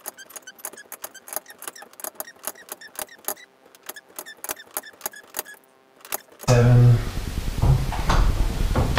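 Steel winding bars clicking and clinking in the winding cone of a garage door torsion spring as the spring is wound up a quarter turn at a time, a quick irregular run of light metallic clicks. About six and a half seconds in, louder metal clanking and knocking takes over.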